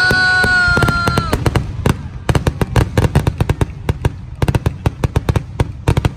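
Aerial fireworks going off in a rapid barrage: dense sharp crackles and pops over a continuous low rumble of bursting shells. A held high tone lasting just over a second sounds at the very start.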